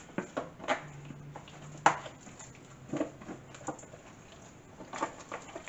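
Hands squishing and patting a whole porgy in thick batter in a plastic container: irregular wet slaps and squelches, with a sharp knock about two seconds in. A faint low hum runs under the first few seconds.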